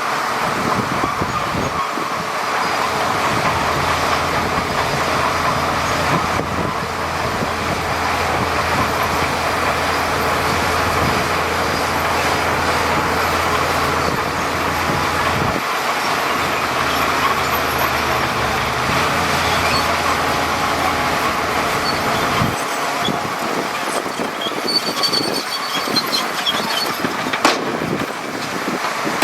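Heavy diesel earthmoving machinery running steadily, with a low engine hum that changes pitch about halfway through and drops away near the end.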